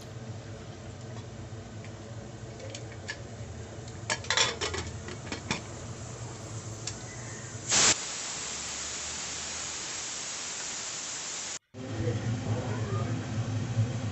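Metal clicks and clatter as a pressure cooker's lid is closed and fitted, then, about eight seconds in, a loud steady hiss of steam venting from the cooker, which cuts off abruptly near the end, under a low steady hum.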